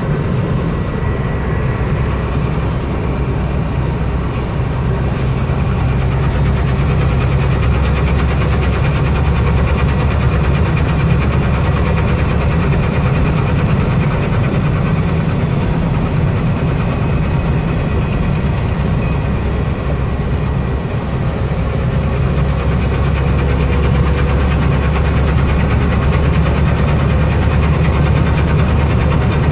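Semi truck's engine and road noise heard inside the cab while driving at highway speed: a steady low drone.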